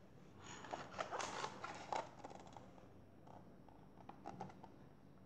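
Handling noise from a picture book being moved and held up close to the microphone: a cluster of soft rustles and light taps over the first two and a half seconds, then a few more around four seconds in.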